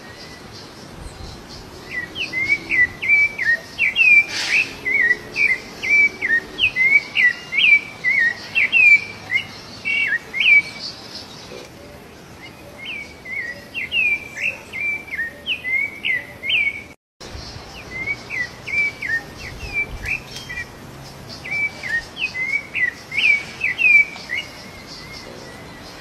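Rufous-bellied thrush singing: runs of short whistled phrases with quick jumps in pitch, repeated in several bouts. The sound cuts out for a moment partway through.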